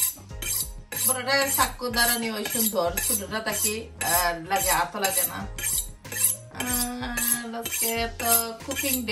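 Chef's knife drawn repeatedly along a steel honing rod: steel-on-steel scraping strokes, about two a second, as the blade is honed.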